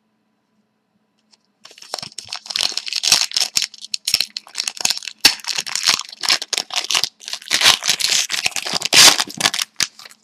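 Crinkling and tearing of a card pack's wrapper as it is torn open and handled, starting about a second and a half in and going on as a dense crackle almost to the end.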